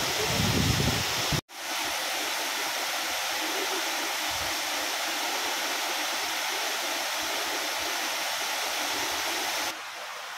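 Steady rush of a tall waterfall, with a heavy low rumble in the first second or so. The sound drops out briefly about a second and a half in, then resumes as an even rush, and falls to a quieter hiss near the end.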